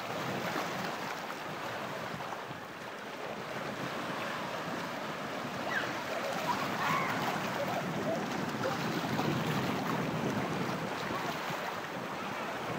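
Steady wash of small sea waves lapping on a rocky shore, with some wind noise on the microphone.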